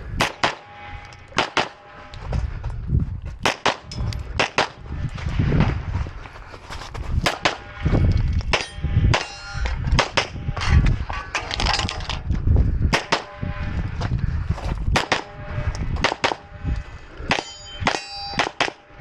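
A string of gunshots at a steady pace, many followed by the ringing clang of bullets hitting steel targets.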